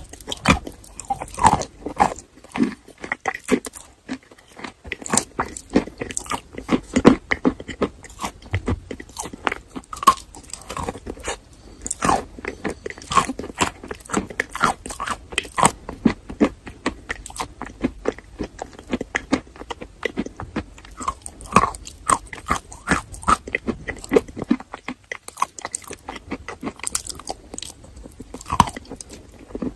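Close-up chewing of chalk coated in a creamy paste: many sharp crunches and crackles as the pieces are bitten and ground between the teeth, with a short lull near the end.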